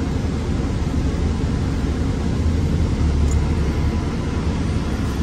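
City bus driving, its engine and road noise heard from inside the passenger cabin as a steady low drone.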